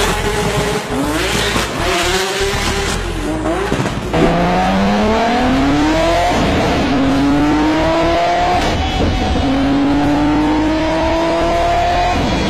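Porsche 996 Turbo's twin-turbo flat-six, fitted with anti-lag, revving and pulling away with crackling exhaust. About four seconds in it gives way to an Audi RS4's 3.0-litre twin-turbo V6 at full throttle on a dyno, its pitch climbing and dropping back with each of several upshifts.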